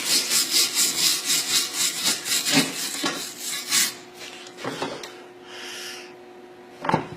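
Hand wire brush scrubbing a fresh MIG weld bead on steel to clean it, in quick back-and-forth strokes, about five a second. It stops about four seconds in, leaving a few light knocks of metal being handled.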